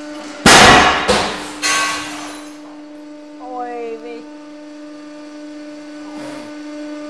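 Brass cylinder in a hydraulic press shears with a sudden, very loud bang about half a second in. Two more crashes follow within about a second as the flying piece of brass smashes through window glass. The press's steady hum runs underneath.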